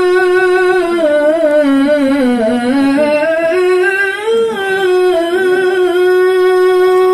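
A young man's solo voice singing a suluk, holding one long melismatic vowel on 'yā' with wavering ornaments. The pitch sinks in the middle and climbs back about four seconds in. No other voice or instrument is heard alongside it.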